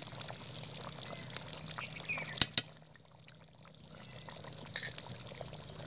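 Thin chicken curry with potatoes simmering and bubbling in a metal kadai, a steady wet burble. A spoon clicks sharply against the pan twice about two and a half seconds in, and again near five seconds.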